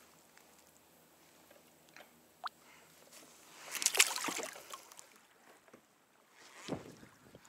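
A splash as a fish is slipped back into the sea by hand from a kayak, about four seconds in. There is a short rising squeak before it and a dull bump near the end.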